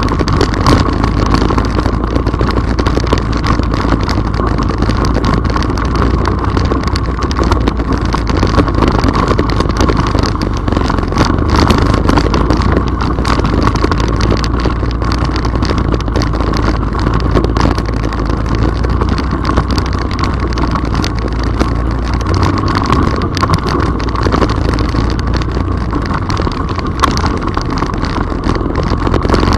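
ATV engine running steadily while riding over a rough, wet gravel trail, with a constant hum and many rattles and knocks from the ride.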